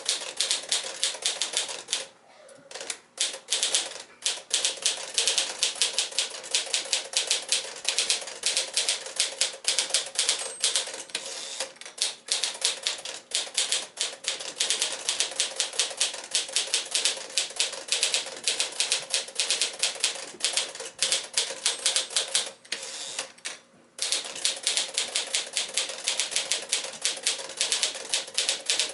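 1955 Smith-Corona Silent-Super manual portable typewriter being typed on steadily: quick runs of sharp key strikes, several a second. The typing pauses briefly about two seconds in and again about four-fifths of the way through.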